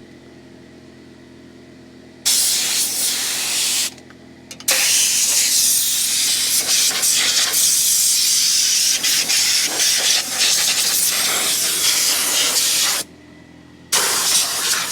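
Compressed air blasting through a Radiator Genie air-gun attachment in three bursts of loud hiss: a short one about two seconds in, a long one of about eight seconds, and another starting near the end. A steady low hum runs underneath.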